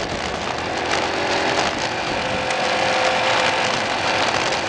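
Motorcycle engine running as the bike rides over a rough dirt track, with wind noise and scattered knocks and rattles.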